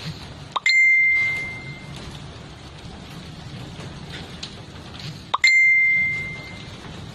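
Two identical bright bell dings about five seconds apart, each opened by a quick rising swish and ringing out over about a second, over a steady hiss.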